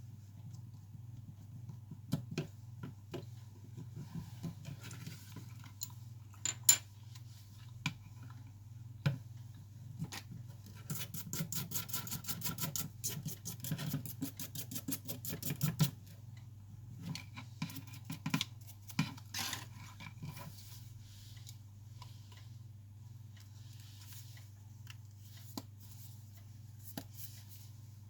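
Small tools and phone parts handled on a workbench: scattered clicks and light taps over a steady low hum. About eleven seconds in comes a run of rapid, even clicking, about eight a second, which stops about five seconds later.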